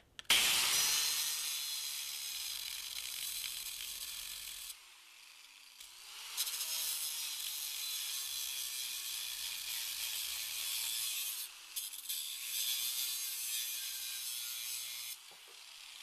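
Angle grinder grinding a metal bar held in a bench vise, in three long passes with short breaks about five and twelve seconds in. Its motor note dips and recovers as the disc is worked against the bar.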